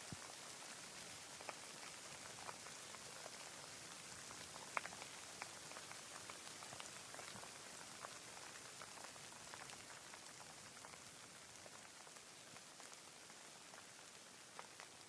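Rain falling, a faint steady hiss with scattered individual drops ticking close by, one louder drop about five seconds in.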